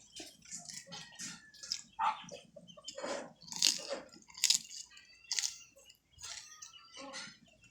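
Close mouth sounds of eating kinilaw clams: wet chewing, smacking and slurping in short irregular bursts.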